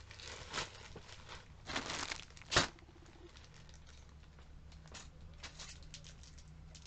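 Plastic bags and packaging rustling and crinkling as products are rummaged through, with one sharp click about two and a half seconds in, then only faint rustles.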